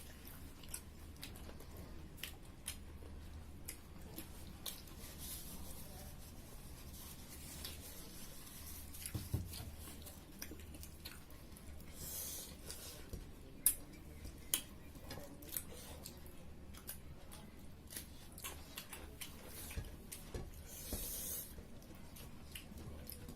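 Quiet eating at the table: soft chewing and rubbing with scattered light clicks and taps, and two brief hissy rustles, over a low steady hum.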